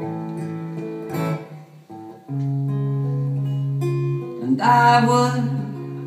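Solo acoustic guitar played in a live song, with long held low notes and a louder, brighter passage near the end.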